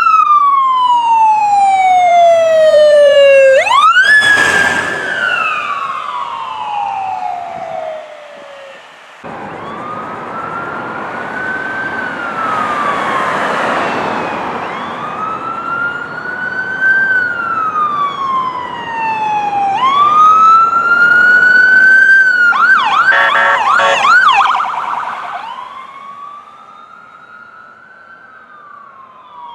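Ambulance electronic sirens on a wail: slow sweeps that rise and then fall in pitch, over traffic noise. About 22 seconds in, the siren switches briefly to a fast yelp, then returns to a wail that fades as the ambulance drives away.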